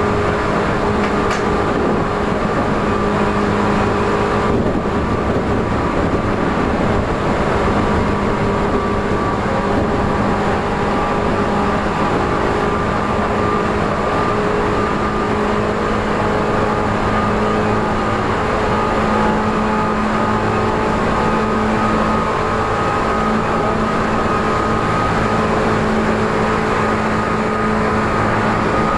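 Tokyu 8500 series electric train running at steady speed, heard from inside the car. Its traction motors and gearing give a loud, steady hum over continuous wheel and rail noise.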